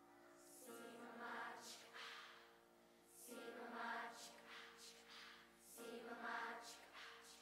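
Large mixed-voice middle-school choir singing softly in three phrases, each swelling and fading over about two and a half seconds, with crisp consonants at the start of each.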